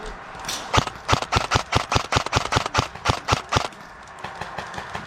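Airsoft gun firing a quick string of shots, about six a second, for roughly three seconds. Fainter shots follow at a similar pace.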